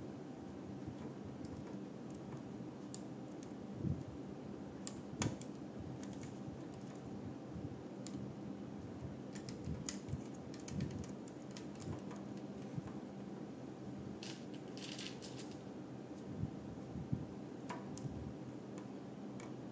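Plastic LEGO bricks clicking and clattering as pieces are handled and pressed onto a build: scattered sharp clicks over a steady low hum.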